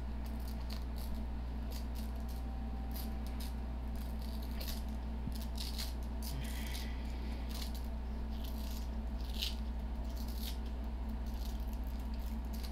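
Steady low electrical or machine hum with scattered light clicks and rattles, busiest in the middle.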